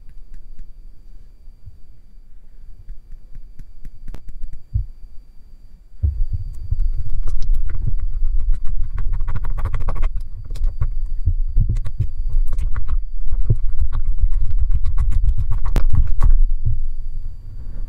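A silicone spatula stirring and scraping thick slime mixture in a glass bowl, with dense low sticky thumps and sharp clicks against the glass. The stirring becomes much louder about six seconds in and eases off just before the end.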